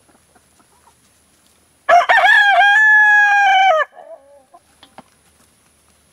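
A rooster crowing once, a single call of about two seconds that starts about two seconds in, holds steady and then drops off at the end.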